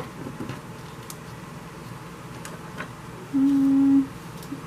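A woman's short closed-mouth hum, a steady "mm" lasting under a second, about three seconds in. It comes over faint light clicks and taps of small craft pieces being handled on the table.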